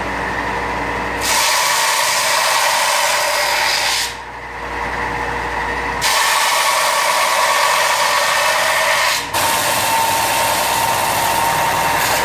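Small bench belt grinder running with a steady hum while a Damascus steel knife blade is pressed to the belt to grind its flats. Loud hiss of steel on the abrasive belt in three passes: from about a second in, again from about six seconds, and after a brief lift just past nine seconds.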